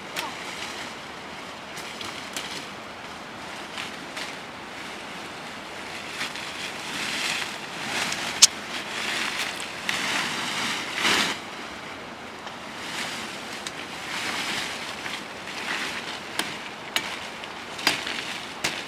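Leafy fodder branches rustling and swishing in swells as they are pulled down and gathered, with a few sharp cracks of wood as branches are cut, several of them near the end.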